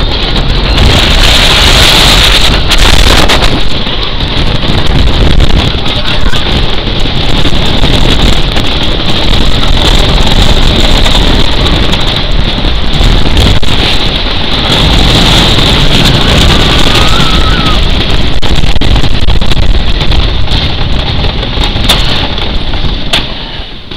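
Wooden roller coaster train running fast along its track, a loud steady rumble mixed with heavy wind buffeting the microphone. It quietens about 22 seconds in as the train slows.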